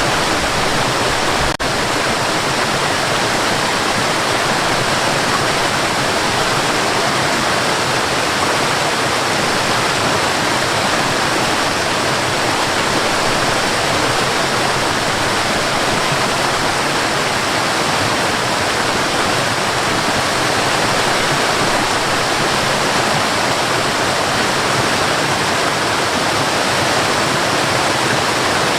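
Forest waterfall: water falling and splashing in a steady, full rush. One brief click about a second and a half in.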